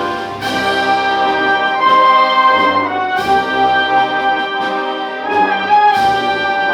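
Municipal concert band playing a slow processional march, with brass holding sustained chords and a percussion crash about every three seconds.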